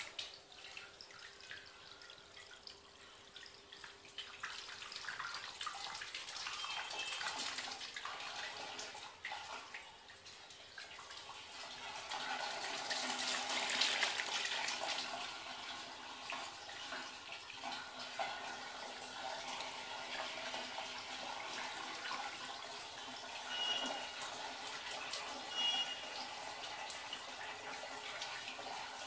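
Water jet from a 12 V micro brushless DC submersible pump splashing and rushing steadily, with a faint steady hum underneath. The splashing swells after a few seconds, is loudest about halfway through, then carries on evenly.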